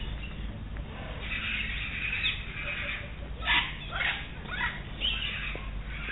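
Birds calling close by: a run of short chirps and squawks, several of them dropping sharply in pitch in the second half, over a steady low rumble.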